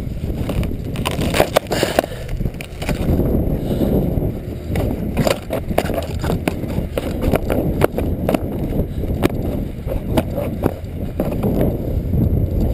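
Wind buffeting a body-worn camera's microphone, mixed with rustling and scattered knocks from footsteps on grass tussocks and rough ground.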